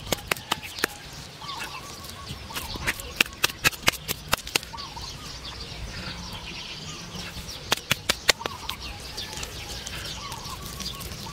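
Small birds chirping and calling, with several runs of sharp clicks or taps, one around three to four seconds in and another around eight seconds in.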